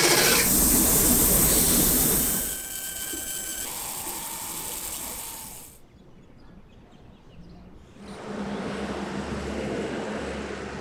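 A motor-driven grinding wheel working a cast aluminium wok body, a loud steady hiss for about the first two seconds. It then drops to quieter machine noise with a few steady tones, falls to a faint background around the middle, and near the end a steady low rumble with hiss sets in.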